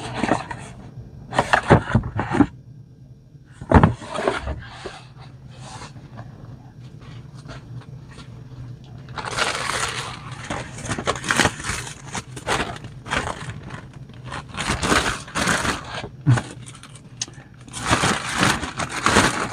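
A plastic shipping mailer bag crinkling and rustling as it is crumpled in the hands, in several long bouts during the second half. In the first few seconds there are a few sharp knocks and rustles as a cardboard box is handled and set down.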